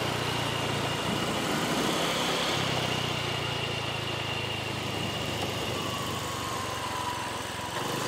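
Car engine running steadily with road noise, heard from a moving car.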